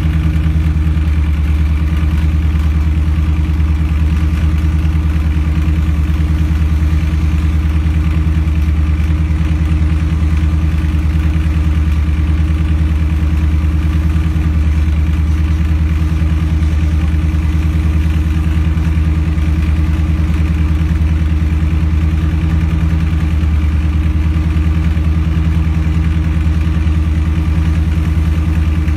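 An engine running steadily at a constant speed, a loud even hum.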